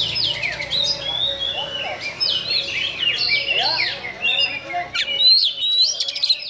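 Oriental magpie-robin singing a fast, varied, harsh-voiced song of quick sliding whistles, with sharp abrupt notes loudest about five seconds in.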